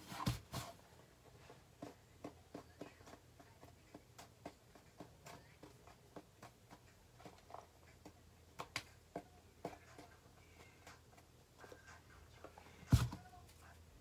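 Faint, irregular small clicks and taps of hands handling slime and a plastic glue bottle, with louder knocks just after the start and about a second before the end.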